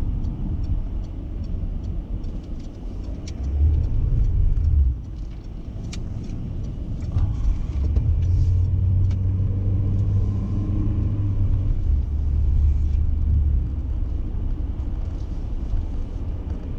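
Car on the move: low, steady road and engine rumble, swelling louder for about a second around four seconds in and again for several seconds in the middle.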